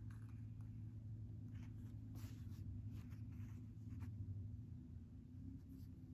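Hand sewing: a needle and thread drawn through fabric, making a few soft scratchy rustles of thread and cloth, over a steady low hum.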